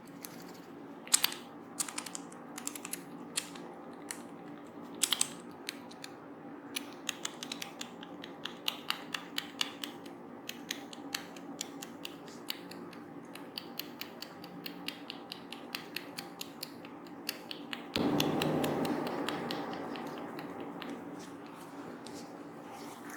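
Fingers working through oiled, wet hair and scalp in close-miked head massage, giving a running series of small crackling clicks that come faster toward the middle. About 18 seconds in, a louder rush of noise starts suddenly and fades over a few seconds.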